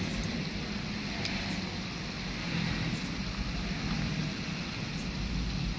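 Steady rushing outdoor background noise with a low hum underneath.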